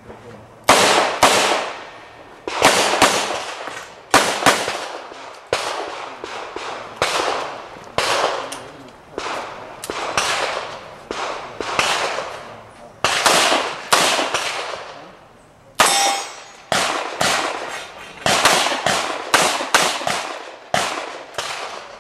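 Pistol fire, about thirty shots, mostly in quick pairs, each ringing out with a long echo. There is a pause of about a second partway through, then a faster string of shots near the end.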